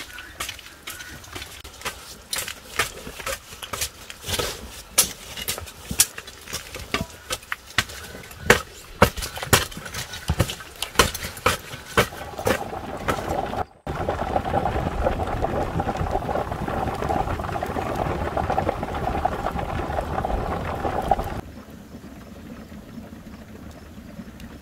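Garden hoes chopping and scraping through loose, freshly dug soil: irregular sharp strikes, several a second. After a sudden break about half-way through, a louder steady noise with a held mid-pitched tone runs for about seven seconds, then drops to a quieter steady background.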